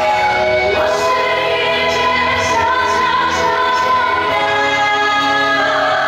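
A woman singing a song into a microphone, accompanied live by a Chinese traditional orchestra of dizi flute, erhu and keyboard, with gliding, sustained melodic lines.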